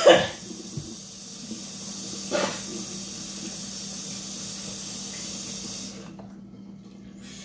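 A steady hiss that cuts off abruptly about six seconds in, with a cough right at the start and a short noise about two and a half seconds in.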